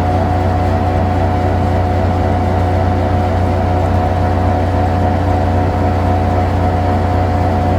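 Heavy engine of tree-removal machinery running steadily at constant speed: a low hum with a steady drone above it, and no chipping or cutting strokes.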